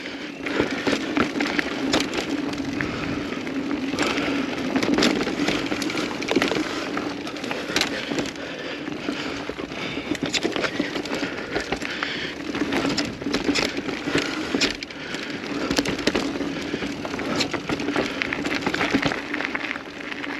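Mountain bike riding down a dirt trail: tyres crunching over dirt and rocks, with frequent sharp clicks and rattles from the bike and a steady low hum underneath.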